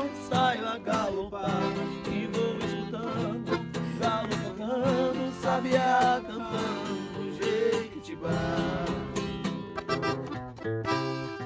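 Acoustic guitar (violão) and accordion (sanfona) playing a modão sertanejo tune without words: strummed chords under a wavering melody line.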